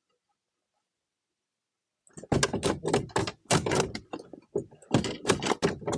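Rapid, irregular knocks and thuds starting about two seconds in, several a second: a feisty, freshly landed bass thrashing against the kayak.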